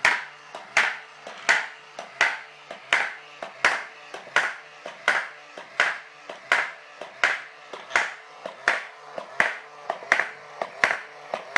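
Spring-loaded hammer of a homemade coin-ring machine striking a spinning coin in an even rhythm, about one ringing metallic tap every three quarters of a second, with lighter clicks between. A small electric motor hums underneath.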